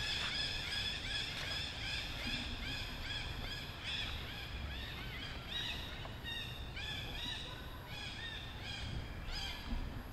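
Monkey screaming: a rapid, unbroken series of high, arching cries, several a second.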